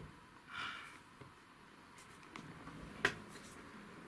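Cardboard smartphone box being handled and slid open by hand: a short rustle about half a second in and a sharp tap about three seconds in.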